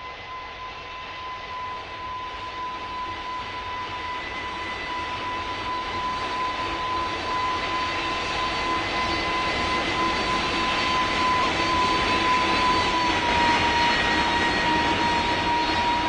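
Jet aircraft engines growing steadily louder as the plane approaches, a rushing noise with a steady high whine that drops slightly in pitch about thirteen seconds in as the aircraft passes.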